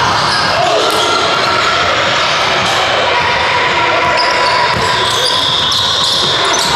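Basketball bouncing on a hardwood gym floor amid players' footsteps, echoing in a large gym hall.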